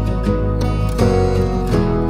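Background music: plucked acoustic guitar-like notes over a steady low bass.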